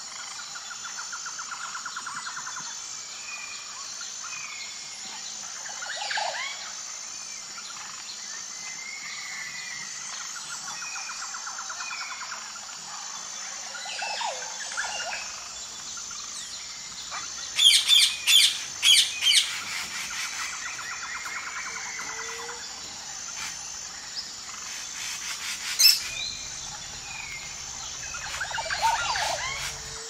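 Mixed birdsong: several birds chirping and trilling over a steady high-pitched pulsing trill. About 18 seconds in comes a run of about five loud, sharp chirps, and another loud one near 26 seconds.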